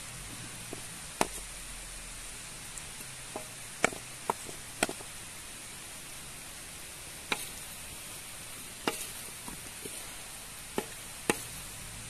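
Diced vegetables and calf's heart sizzling steadily in a large shallow metal pan, with about eight sharp clicks and knocks scattered through.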